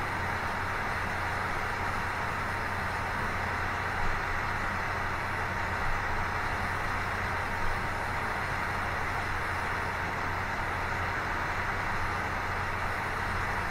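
Mini CNC 3018 engraving machine at work: its 24 V 775 DC spindle motor runs steadily at speed while the machine engraves. A few brief louder bumps come at about four, six and seven and a half seconds in.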